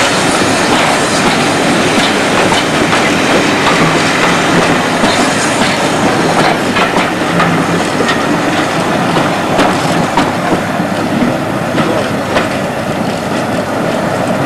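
A train on the move: a steady rumble of the running gear, with irregular clicks of the wheels over the rail joints.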